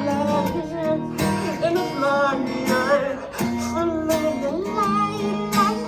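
Live acoustic guitar strumming chords, with a voice singing a wavering line over it.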